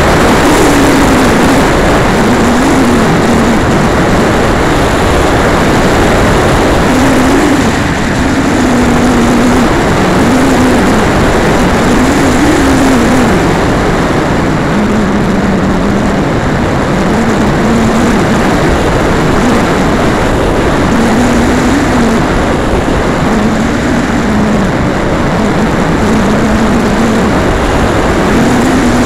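Model aircraft in flight: loud wind rush over the onboard camera's microphone, with a propeller engine's drone underneath that wavers up and down in pitch.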